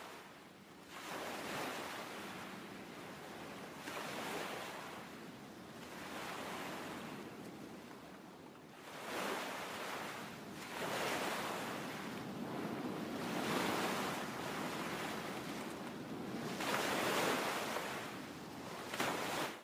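Sea surf: waves washing in, the rush of water swelling and fading every two to three seconds.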